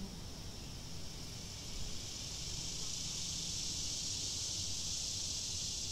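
Insect chorus: a steady high buzzing drone that grows louder about two seconds in and then holds.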